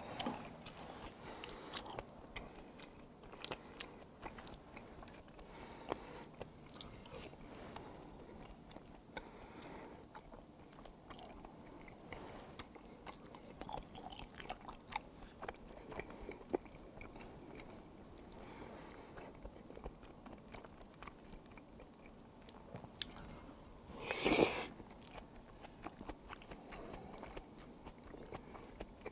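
Close-up chewing of tteokbokki rice cakes, with wet smacks and many small clicks scattered throughout. Near the end there is one louder, noisy burst lasting under a second.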